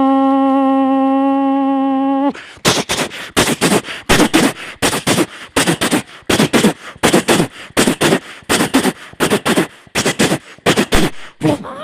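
Vocal mimicry: a held horn-like tone that breaks off about two seconds in, then a rapid, uneven string of sharp percussive mouth sounds, beatbox-style, about three a second, until near the end.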